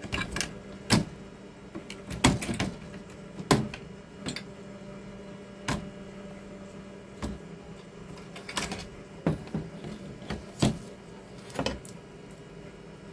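Plastic wire-harness connectors being unplugged and a TV power-supply board handled and lifted off its metal chassis: a string of irregular sharp clicks and knocks.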